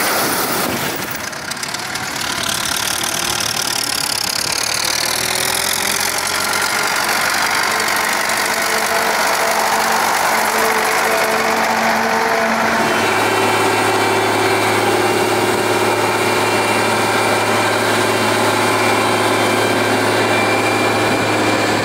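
Diesel engine of harvest machinery running steadily, with a high whine falling in pitch over the first few seconds. About 13 seconds in the engine note changes to a steady low hum.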